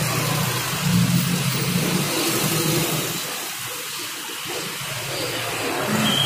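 Water running and splashing in rows of aerated aquarium tanks, a steady hiss. A low hum sits under it for the first couple of seconds.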